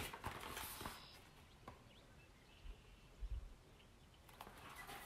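A quiet room with faint handling sounds as a hardcover picture book is lifted and held up: a few soft rustles and light knocks.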